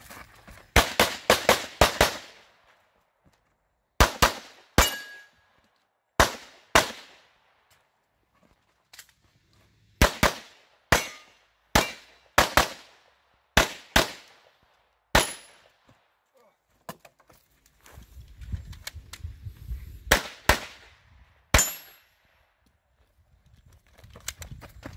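Handgun shots fired in quick strings of two to six, about twenty in all, with gaps while the shooter moves. A steel target rings after one of the shots.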